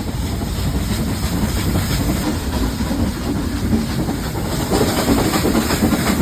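Nilgiri Mountain Railway train running, its wheels and carriages clattering and rumbling steadily on the track, getting a little louder about two-thirds of the way through.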